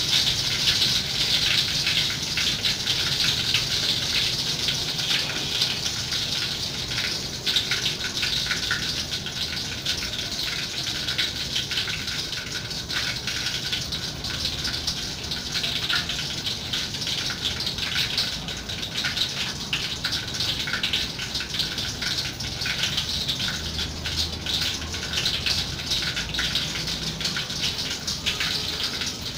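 Wooden pestle knocking and grinding in a clay mortar, many short irregular knocks, over a steady hiss.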